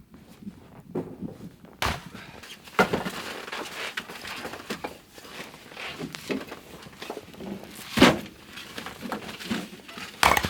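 Crunching in snow with irregular knocks of firewood being handled and loaded, the loudest knock about eight seconds in.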